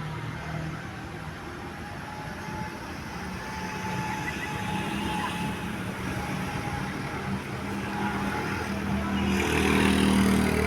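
A bus engine running and growing louder as it draws near, with a burst of hiss and a louder engine note about a second before the end.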